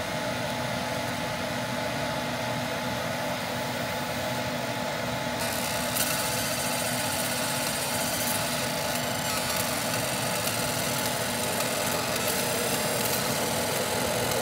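A machine running steadily: a constant whir and hum, with a high hiss that shifts about five to six seconds in.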